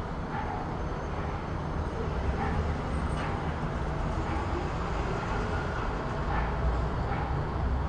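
City street ambience: a steady low rumble of traffic with faint scattered small noises.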